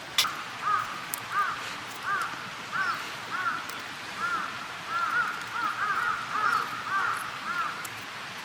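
Crows cawing: a quick run of short, arched caws, some overlapping as if from more than one bird, over a steady background hiss. A single sharp click sounds just before the calls begin.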